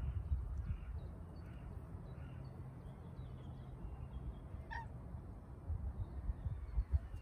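Low rumble of wind on the microphone, with faint, high bird chirps repeating and one short pitched call about five seconds in.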